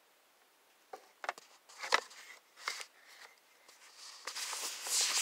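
Handling noise as the phone camera is moved: a few sharp clicks and knocks from about a second in, then rustling that grows louder near the end.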